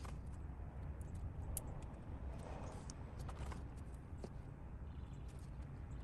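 Faint clicks and crinkles of small wiring parts and a plastic parts packet being handled, over a low steady rumble.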